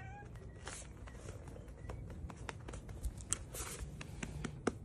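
Faint rustling with light, irregular clicks and taps, a few sharper ones in the second half, as a cat is handled and moves about on a hard surface.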